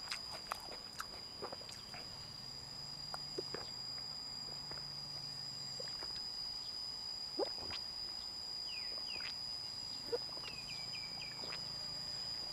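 A man drinking water from a plastic bottle: soft swallows and small crackles and clicks of the bottle. Behind it runs a steady high insect drone, and a bird chirps a few short falling notes near the end.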